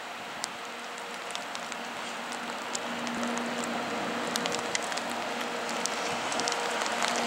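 JR EF64 electric locomotive hauling a container freight train away from the terminal, drawing nearer and getting steadily louder: a noisy rush with a steady hum and scattered light clicks.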